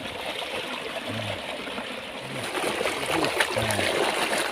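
Water running and trickling with light splashing.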